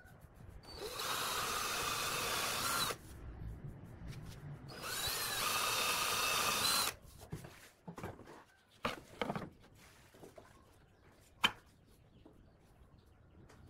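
Cordless drill boring into plywood in two bursts of about two seconds each, a high whine over the cutting noise. A few short knocks and one sharp click follow in the second half.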